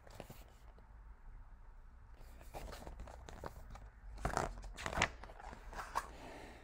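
Paper pages of a picture book rustling and crinkling as the book is handled and its pages turned, with a few short crackles, the loudest about four and five seconds in.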